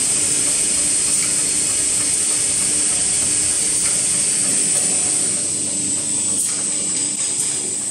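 Semi-automatic kitchen towel roll packing machine and its belt conveyor running: a steady hum under a loud, steady high-pitched hiss, with a few faint clicks in the second half.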